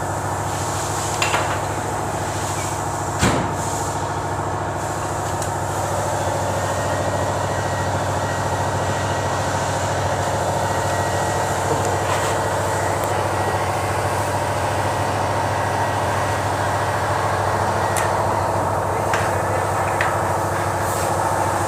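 A machine motor or engine running steadily, with a few sharp knocks, the clearest about three seconds in.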